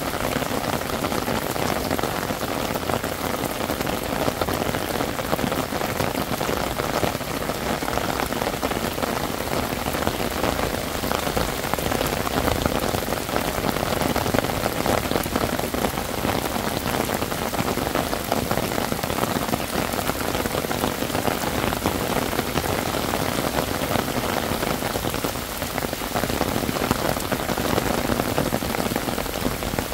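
Heavy rain falling steadily: a dense, even patter of raindrops with no breaks or distinct events.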